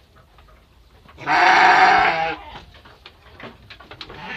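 A Garut sheep bleats once, a loud call lasting about a second and starting a little over a second in, with light scattered clicks and knocks around it.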